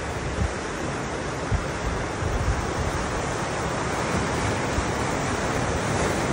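Surf washing on the shore in a steady wash of noise, with wind buffeting the microphone in low gusty rumbles and a few short thumps.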